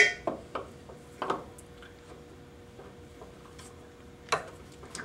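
Metal clinks and knocks of a six-spindle drilling head being fitted onto a Bridgeport milling machine's quill: a sharp, ringing clink at the start, a few lighter knocks in the next second or so, and another knock about four seconds in. A faint steady hum runs underneath.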